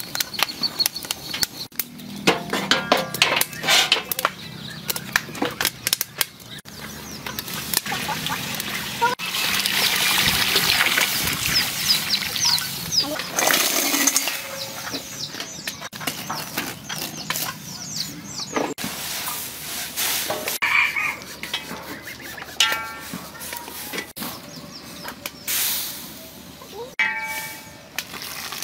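Clatter and splashing of instant-noodle blocks being cooked and scooped in a large metal wok over a wood fire, with many sharp knocks and a rush of noise a little before halfway. Chickens cluck now and then, more in the second half.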